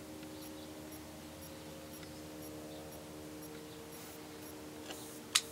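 A single sharp crack near the end, the shot of an Umarex P.08 Luger BB pistol powered by a CO2 cartridge, with a faint click just before it. Under it runs a faint steady hum.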